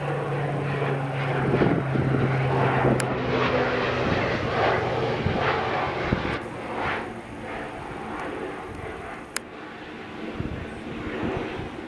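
Low-flying single-engine propeller airplane passing overhead, its engine droning with a steady low hum that fades after about six seconds as it moves away. A single sharp click comes near the end.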